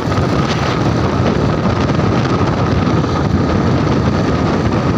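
Motorcycle engine running at a steady cruising speed, with heavy wind noise on the microphone from the moving bike.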